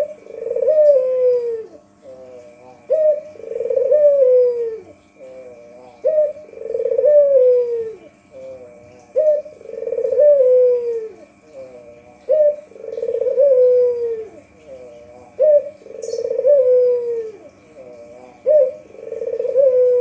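White ringneck dove (puter putih) cooing. Each phrase is a short rising note followed by a long falling coo, repeated about every three seconds with softer notes in between.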